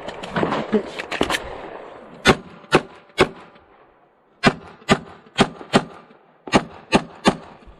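Ten 9mm pistol shots from a Glock 34 fired in three quick strings of three, four and three, each shot about half a second apart, as the shooter engages targets on a timed stage.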